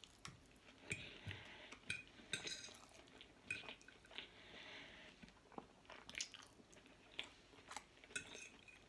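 Faint close-up chewing, with scattered small clicks of a metal fork on a plate.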